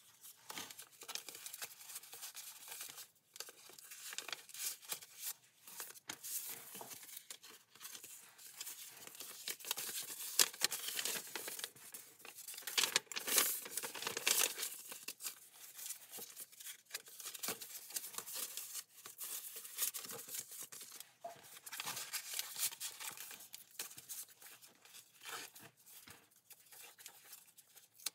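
Paper rustling and crinkling as hands turn the pages of a handmade junk journal and unfold a folded paper insert, many small crackles, loudest around the middle.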